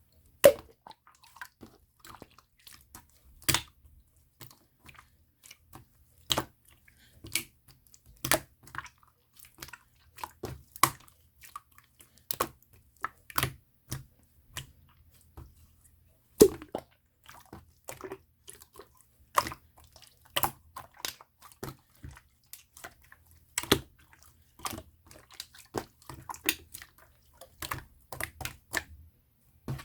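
Opaque slime being worked by hand, making irregular sharp clicking pops and wet squishes, a few of them much louder than the rest.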